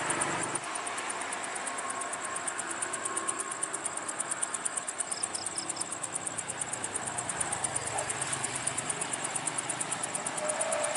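Steady tyre and engine noise of buses and trucks passing on a toll road, with an insect chirping over it in fast, even pulses.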